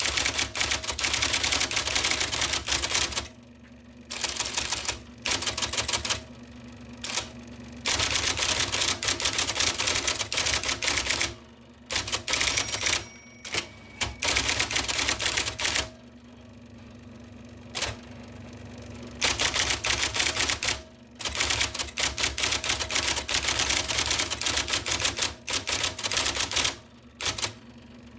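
IBM Selectric II electric typewriter typing in fast bursts of keystrokes, its typeball mechanism clattering, broken by short pauses every few seconds. In the pauses its motor keeps running with a steady low hum.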